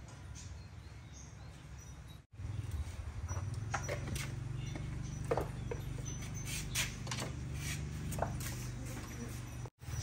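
Cast-iron gas ring burner running under a cooking pot: from about two seconds in, a low steady rumble of the flame with a few light ticks over it.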